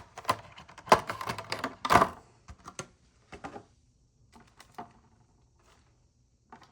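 Packaging of a boxed diecast model airplane being handled and opened: a quick run of sharp clicks and scrapes in the first two seconds, then sparser taps.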